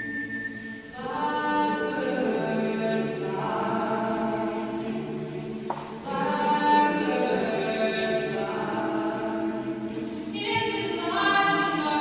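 Mixed choir of men's and women's voices singing a cappella in held chords, with new phrases starting about a second in, around the middle, and near the end.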